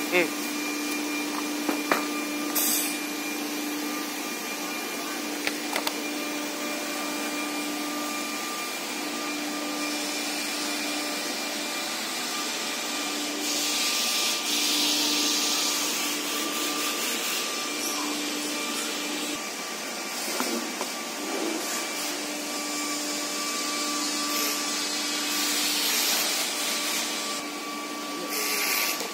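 Steady workshop machinery drone with a low hum that breaks off and resumes every second or two, and a fainter steady whine above it. There are louder spells of hissing around a third of the way in and again about three quarters through.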